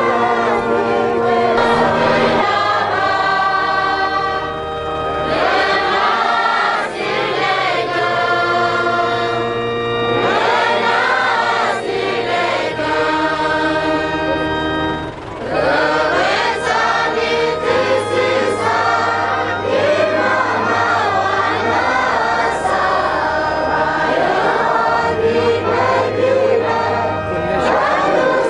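A large group of voices singing a slow song together, over held low notes that change every couple of seconds.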